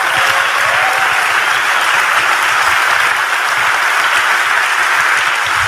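Large audience applauding, loud and steady.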